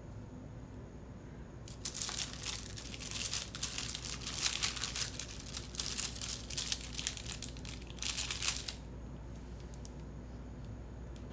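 Paper sticker sheets rustling and crinkling as they are handled, for about seven seconds starting about two seconds in.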